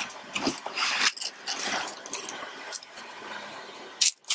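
Tissue paper in a cardboard shoebox rustling and crinkling as hands fold it back, with irregular scrapes of the paper against the box and a sharper crackle near the end.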